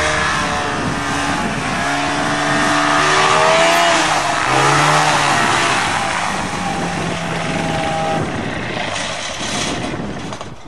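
Light ski-plane's propeller engine running at high power, its pitch rising and falling as the throttle is worked, with heavy propeller wash. The plane is straining to taxi through sticky mud and snow.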